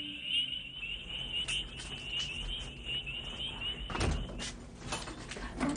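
Steady, high, pulsing chirring of night insects. About four seconds in it stops and gives way to a door sound and a couple of knocks and thuds.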